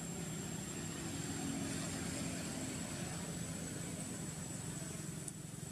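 Steady background hum from an engine or motor somewhere off-scene, with a thin, constant high-pitched whine above it.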